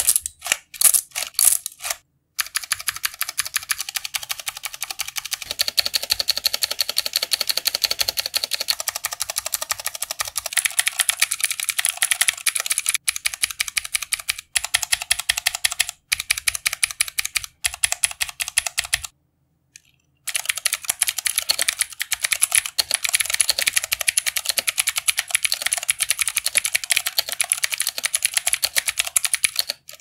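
ASUS ROG Falchion mechanical keyboard with clicky Cherry MX Blue switches being typed on: fast, continuous keystroke clicks broken by a few short gaps and a pause of about a second about two-thirds of the way through.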